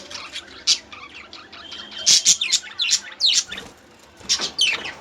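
Several budgerigars chirping and chattering, with quick high chirps and sharp sweeping notes coming in clusters and a short lull a little past the middle.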